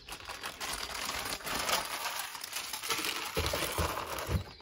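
Plastic packaging of rubber gloves crinkling as it is handled, with a few soft knocks near the end as items go into a plastic storage basket.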